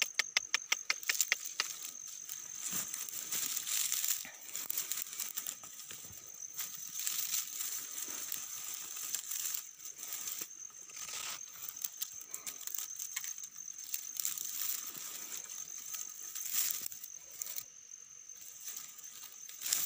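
Rustling and crackling of something handled close to the microphone, beginning with a quick run of clicks over the first two seconds. A steady high whine runs underneath.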